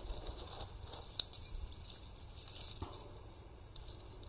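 Small metal pocket items, such as keys and coins, clinking and rattling as they are handled and set down on a surface, with a few light clicks; the loudest clink comes about two and a half seconds in.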